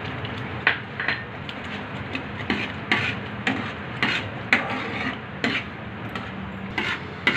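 Metal spatula scraping and clinking against a metal pan while stirring wet semolina halwa as it cooks down with water. The strokes come irregularly, about two a second with short pauses, over a steady low hiss.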